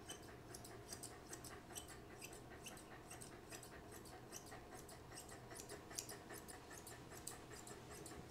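Kenchii Sapphire grooming shears snipping through a Bedlington Terrier's coat: quiet, quick, irregular snips, a few a second, as the legs are trimmed.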